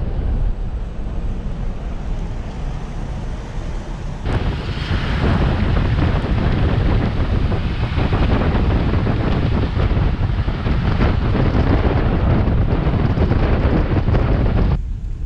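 Wind rushing over a camera microphone mounted low beside a moving pickup truck's rear wheel, mixed with tyre noise on asphalt. It gets much louder about four seconds in and drops off abruptly near the end.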